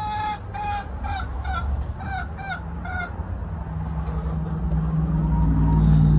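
A chicken calling in a quick run of about eight short clucks over the first three seconds. After that a low steady hum builds up and grows louder toward the end.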